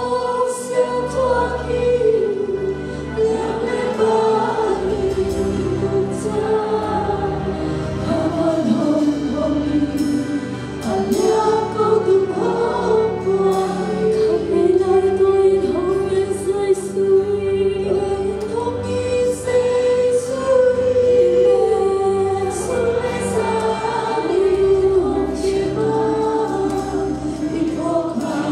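Live gospel praise-and-worship band playing: a woman sings the lead melody with backing singers, over electric and acoustic guitars, keyboard and drums.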